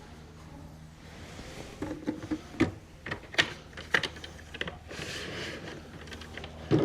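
A quick, irregular run of sharp clicks and knocks, followed by a short rustle.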